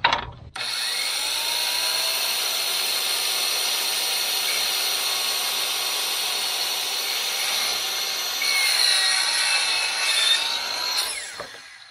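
Electric saw running and cutting a 45-degree angle through wooden baseboard, a steady whine that starts abruptly, grows a little louder near the end, then winds down.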